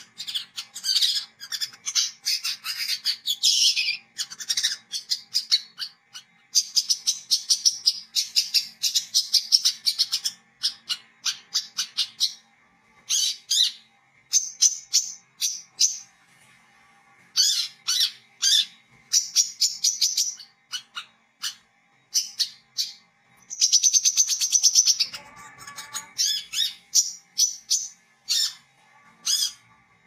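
Brown-throated sunbird (kolibri kelapa, 'wiceh') singing in rapid, high-pitched chattering and trilling runs that stop and start with short pauses. About 25 seconds in there is a brief lower, rougher burst.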